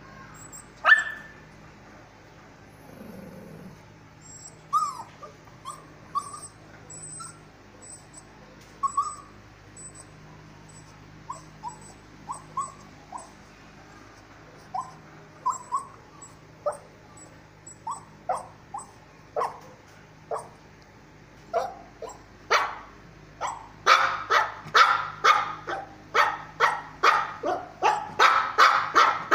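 Shih Tzu whining in short, high cries spaced a second or so apart, then breaking into a fast run of louder barks, about two a second, over the last several seconds.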